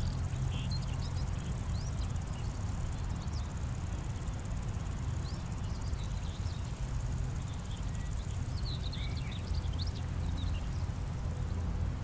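Meadow insects stridulating: a steady high-pitched buzz of grasshoppers and bush crickets, with a very high band of buzzing that comes in about halfway through and stops near the end. Short rising bird chirps are scattered over it, above a steady low rumble.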